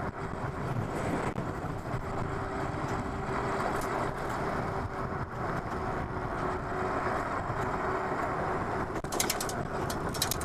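Riding noise from a Super73 S2 electric bike on the road: steady rushing wind and tyre noise, with a faint steady whine through most of it and a short run of light ticks near the end.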